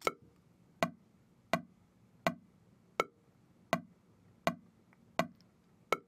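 Pro Tools metronome click counting off before playback: nine short, evenly spaced ticks about three-quarters of a second apart, a tempo of 82 beats a minute.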